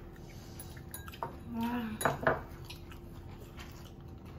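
Tableware clinking and knocking on a dining table, with a few light clicks and then two sharp knocks about two seconds in as a drinking glass is set down.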